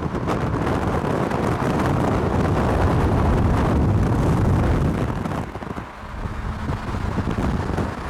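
Strong wind buffeting the microphone over the noise of a vehicle driving fast, easing off briefly about six seconds in.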